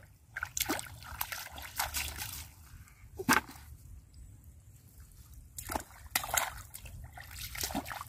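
Shallow muddy water splashing and sloshing as children wade through it and grab fish by hand, in irregular splashes, the sharpest a little over three seconds in.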